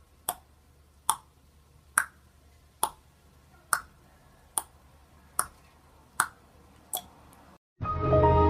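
A run of sharp clicks or taps at an even pace of a little over one a second, nine in all, each with a brief ring that changes slightly in pitch from one to the next. It cuts off near the end and music begins.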